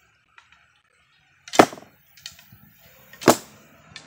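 Two sharp bowstring shots from a traditional bow, arrows loosed in quick succession, about a second and a half apart, with fainter clicks in between.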